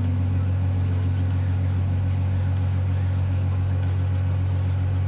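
Twin-turbo LS V8 engine running steadily at a constant speed, a deep even drone that holds its pitch without revving up or down.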